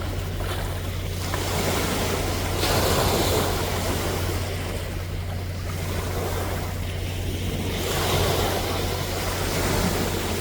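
Sea waves breaking and washing up the shore, the surf swelling louder about every five seconds, over a steady low hum.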